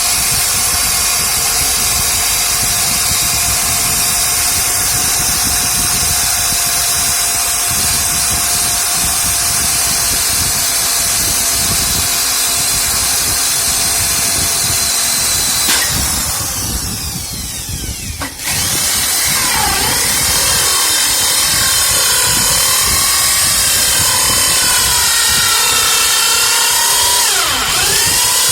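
Electric drill running a hole saw at a steady whine. About sixteen seconds in it is let off and winds down, and about two seconds later it starts again. Its pitch dips briefly twice as it comes under load.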